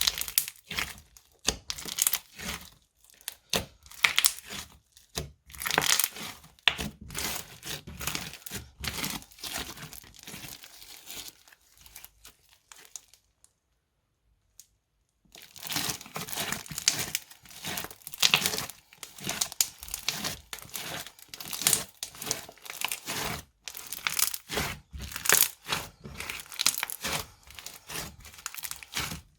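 Crunchy transparent slime squeezed and pressed by hand, giving dense, irregular crackling and popping. It stops for about two seconds midway, then resumes.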